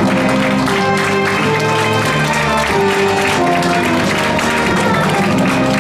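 Symphony orchestra playing the curtain-call music in a steady melody of held notes, with audience applause running beneath it.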